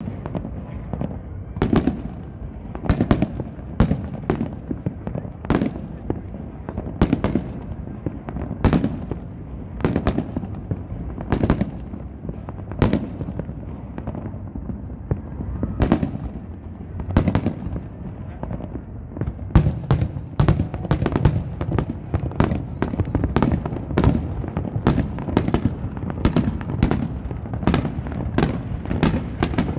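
Aerial fireworks shells bursting overhead, each a sharp bang over a continuous low rumble. They come about one every second or two, then quicken into a rapid string of bangs in the last third.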